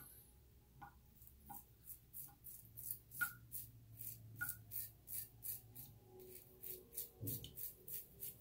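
Razor blade scraping through lathered stubble on the neck: a RazoRock Blackhawk v2 razor making a quick, even run of short, crisp strokes, several a second.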